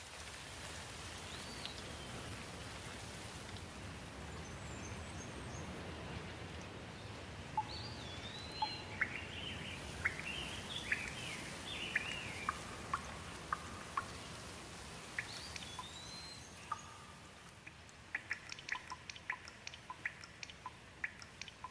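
Steady rain falling, with songbirds whistling short rising and falling calls over it. Near the end comes a quick run of sharp ticks.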